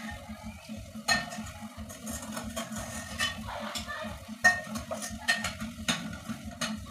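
Metal spoon stirring fried pork into tomato sauce in a metal pot, scraping and clinking against the pot with a few sharper knocks, the loudest a little past the middle.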